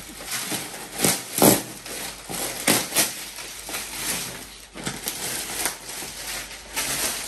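Clear plastic packaging bag crinkling and rustling as it is pulled off a rolled set of crib bumpers, in irregular crackles that are loudest in the first three seconds.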